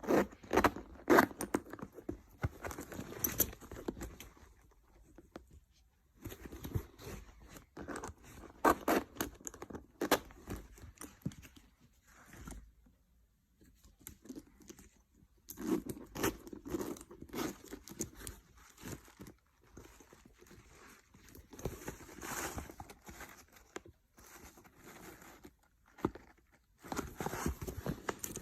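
Packaging being opened and handled by hand: crinkling, scraping and tearing in bursts, with short pauses between them.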